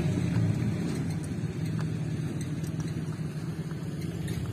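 An engine idling steadily, a low even hum, with a few faint metallic clicks of hand tools over it.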